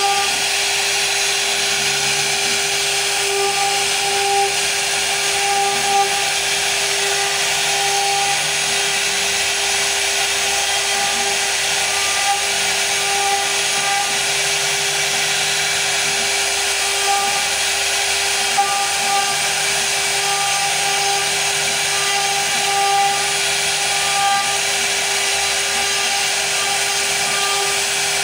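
CNC router spindle cutting wood: a steady high-pitched whine over a continuous rasping hiss, with a lower hum and higher tones that come and go as the cut goes on.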